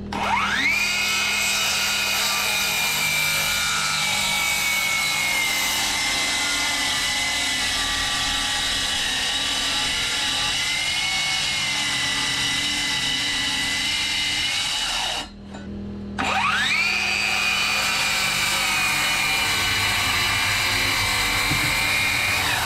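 Ryobi brushless cordless circular saw cutting plywood. The blade spins up to a steady high whine for a long cut of about fifteen seconds, stops briefly, then spins up again for a second cut of about six seconds.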